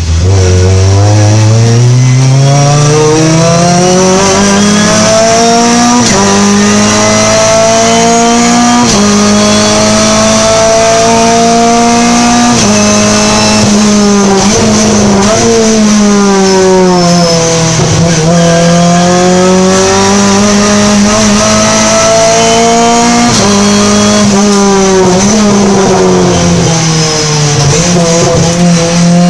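Renault Clio Cup race car's four-cylinder engine heard from inside the cockpit at racing speed: it climbs in pitch through upshifts about six, nine and thirteen seconds in, falls away under braking with downshifts, pulls up again to another upshift, then slows and accelerates once more near the end.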